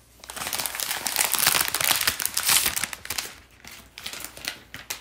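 Plastic packaging crinkling as it is handled: dense crackling for about three seconds, then a few scattered crackles.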